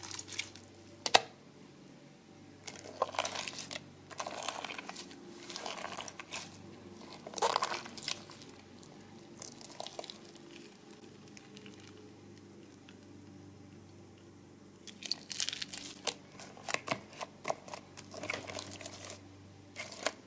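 Hands squishing and poking a large mass of mixed slime and putty, giving short, irregular sticky squelching bursts. The bursts pause for a few seconds in the middle and come thickest near the end.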